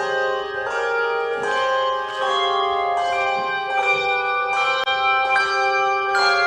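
Handbell choir playing a hymn: chords of handbells struck about every three quarters of a second, each ringing on over the next.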